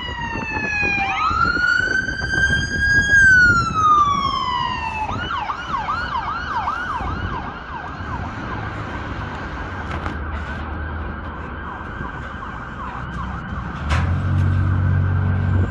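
Emergency vehicle siren: a slow wail falling and rising in pitch, switching about five seconds in to a fast yelp that runs on as a high rapid warble. A deep, steady horn sounds over it near the end.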